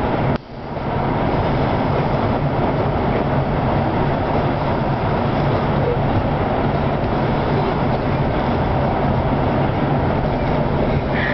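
Steady road noise inside a moving car's cabin, a low engine and tyre hum, with a brief dip in level about half a second in.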